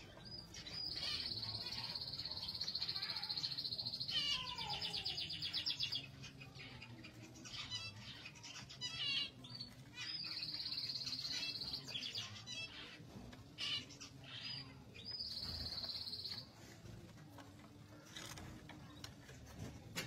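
Zebra finches chirping and calling, with a quick run of pulsed notes about four seconds in. Three spells of a steady, high-pitched buzz run through it.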